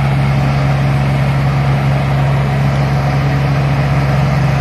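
Tracked rice combine harvester running steadily, its engine giving an even low hum that holds the same speed throughout.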